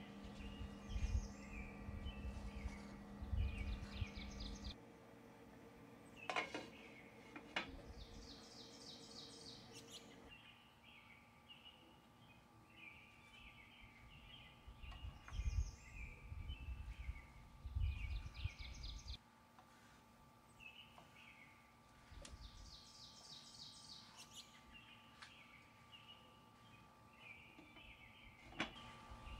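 Birds chirping and twittering in short, repeating phrases, faint, with a few soft low thumps.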